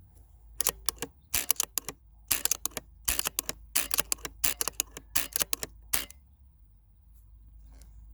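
Quick clusters of sharp mechanical clicks, about eight bursts over five seconds, stopping about six seconds in.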